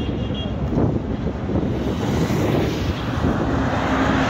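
Highway traffic going past, with a bus engine growing louder as it approaches in the second half.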